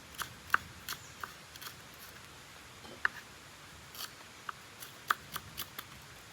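Knife chopping green chillies on a cutting board: sharp, short taps at an uneven pace, with a short pause in the middle.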